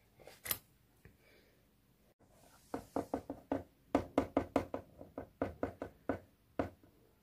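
A plastic fashion doll's feet tapped on a plastic dollhouse floor to make footsteps as she walks off: a couple of single clicks, then from about three seconds in a quick run of light knocks, about five a second, for some four seconds.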